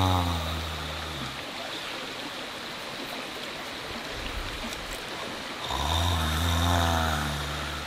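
A person snoring: long, low, droning snores, one dying away about a second in and the next starting near six seconds in, with a steady hiss in the gap between them.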